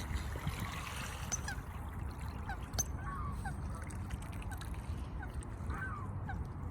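Waterfowl honking: short, downward-sliding honks repeated irregularly, roughly every half second, over a steady low rumble.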